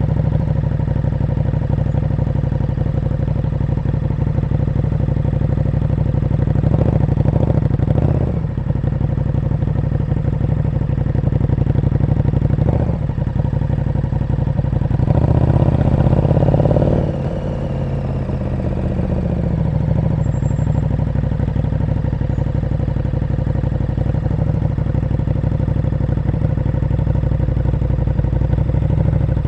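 KTM 1290 Super Duke R's V-twin engine with an aftermarket exhaust, running at low revs. It gives a couple of short throttle blips about seven to eight seconds in, then a longer, louder pull about fifteen seconds in that drops back suddenly near seventeen seconds.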